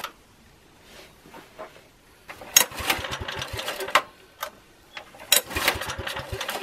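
Small generator engine being pull-started twice, each pull giving a short burst of fast, even cranking knocks that dies away. It is hard starting, put down to a replacement ignition coil from another engine that does not match the original's specifications.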